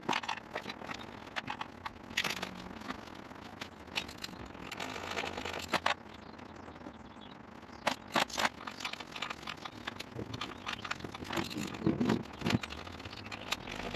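Irregular clicks and short scrapes of a socket wrench and metal parts being handled in a car engine bay while bolts are fitted and snugged into a plastic intake manifold, with a few sharper knocks near the middle and end.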